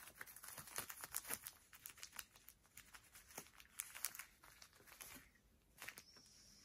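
Faint crinkling and crackling of a shiny wrapped cat toy as a hand tugs at it and a cat paws it: many quick, irregular crackles, thinning out after about five seconds.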